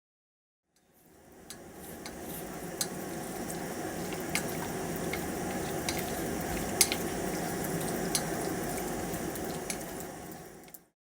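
Campfire burning with a steady low rush and scattered sharp crackles and pops, fading in about a second in and fading out near the end.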